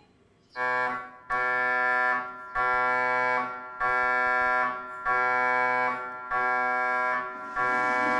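MRI scanner running a scan sequence: loud, steady electronic buzzing tones in blocks of about a second, separated by brief pauses, about seven in a row, starting about half a second in.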